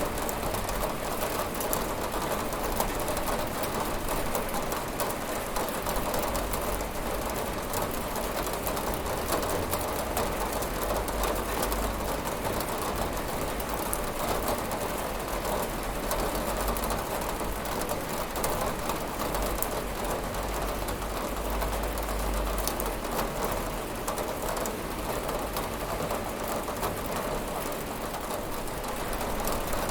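Steady rain falling on a window, a constant hiss dotted with many small drop ticks.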